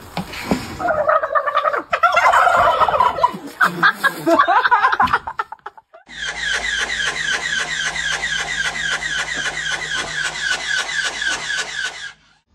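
A flock of domestic white turkeys gobbling, mixed with a woman calling at them through a large plastic bottle. After a short break about six seconds in, rapid gobbling runs on in a dense, even chorus over a steady low hum.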